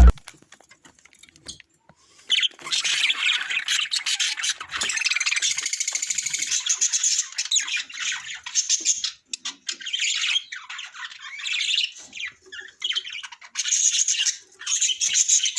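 Small pet parrots chattering and squawking: dense, high-pitched chatter that starts about two seconds in and runs on with brief pauses.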